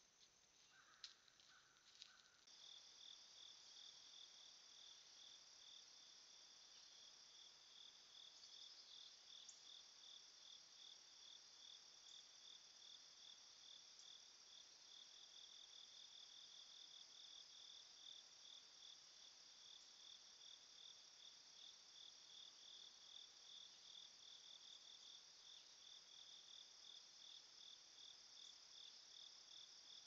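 Faint chorus of insects chirping, a steady, fast-pulsing high trill that starts about two and a half seconds in, after a few soft clicks.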